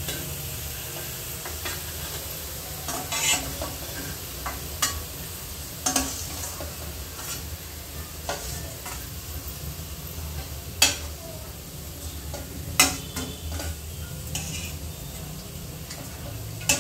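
Onion slices frying in hot oil in a stainless-steel pan, a steady sizzle. A stainless slotted skimmer clinks and scrapes against the pan and a steel plate every second or two as the golden onions are lifted out.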